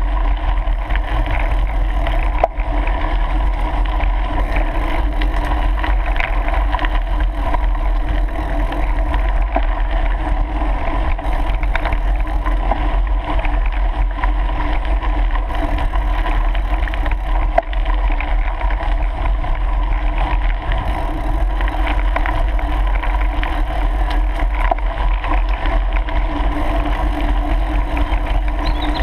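Continuous rumble and rattle of mountain bike tyres rolling over a gravel track, picked up by the riding camera, with two sharp knocks from bumps, one about two and a half seconds in and one about two-thirds of the way through.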